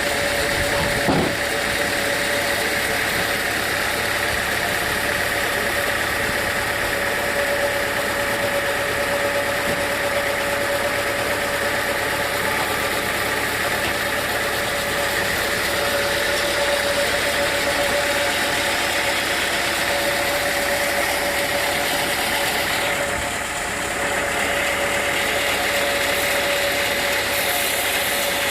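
Sawmill machinery running steadily: a constant engine-driven hum with a steady whine, and a brief knock about a second in.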